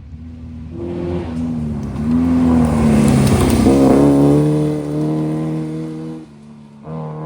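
Historic rally car passing at speed, its engine revving hard and climbing through gear changes as it approaches, loudest about three to four seconds in, then pulling away. There is a short lift off the throttle near the end before it picks up again.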